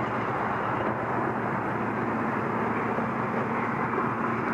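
Steady rushing noise of vehicle traffic on the highway bridge overhead, with a faint low engine drone.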